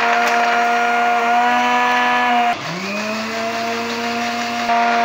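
Electric jug blender's motor running at speed, grinding soaked, peeled almonds with a little milk into a paste. Its pitch dips about halfway through and spins back up to a steady whine.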